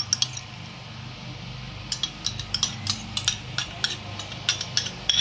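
A metal spoon clicking and scraping against a glass bowl while thick yogurt is dabbed onto rice: a couple of clicks at the start, then a quick run of light clicks, about three or four a second, from about two seconds in. A steady low hum runs underneath.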